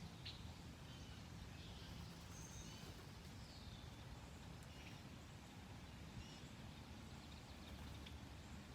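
Faint outdoor ambience: scattered short bird chirps and brief high calls over a steady low rumble.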